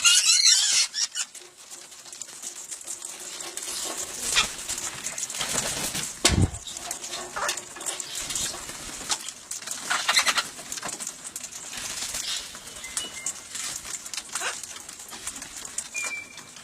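Birds at close range cooing low, with wing flaps and scratchy rustles, a dull thump about six seconds in, and a few short high chirps near the end.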